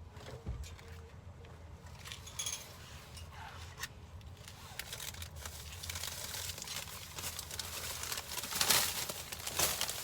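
Plastic shopping bags rustling and crinkling as they are handled, with scattered light clicks and knocks; the rustling swells louder a little before the end.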